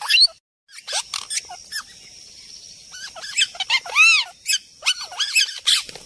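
Wild birds calling and singing: a busy run of short chirps and whistled notes, with a few loud arched notes about four seconds in. The sound drops out completely for a moment just after the start.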